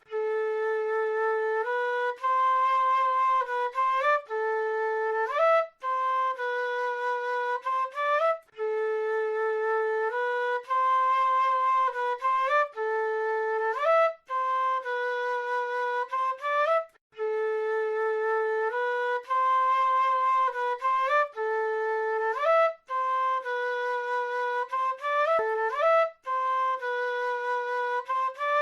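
South American flute playing a slow solo melody, one note at a time, often sliding up into a note, in phrases a few seconds long with short breaks between them.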